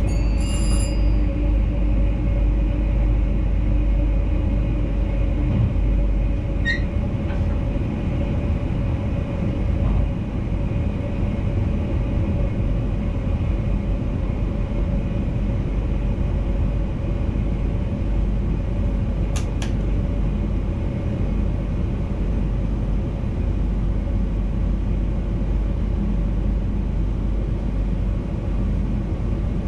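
Steady low rumble and electric hum of a VIRM double-deck electric intercity train, heard from the driver's cab, with a short high beep near the start.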